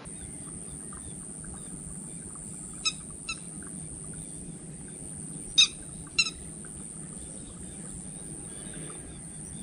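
Lapwing calls: two pairs of short, sharp calls, one pair about three seconds in and a louder pair a couple of seconds later, over a steady high hiss and a low hum.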